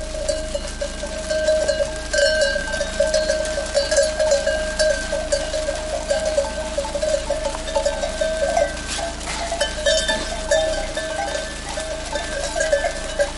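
Bells on a flock of sheep, clanking irregularly and overlapping as the animals move, with a steady ringing running under the clanks.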